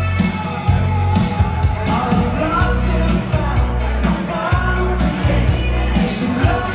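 Pop-rock song playing loud, with a steady beat, heavy bass and a sung lead vocal.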